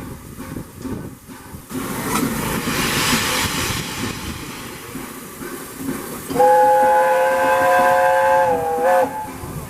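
Steam locomotive sounding a chime whistle: a loud, steady chord of several notes held for about two and a half seconds, sagging slightly in pitch just before it cuts off, with a short extra toot. Before it, a steady rush of hiss, steam escaping from the locomotive.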